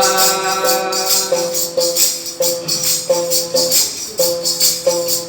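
Instrumental interlude of a devotional bhajan: a melodic instrument plays short repeated notes, one about every half second, over steady jingling percussion such as tambourine or cymbals.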